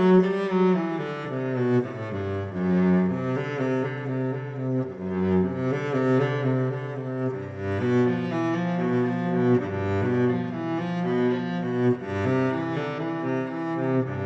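Background music: bowed strings, a low cello or double bass line under a melody, with notes changing about every half second to a second.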